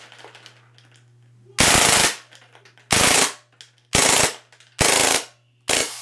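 CO2-powered MAC-11 airsoft submachine gun firing five short full-auto bursts of BBs about a second apart, the last one cut short. The CO2 cartridge is running out.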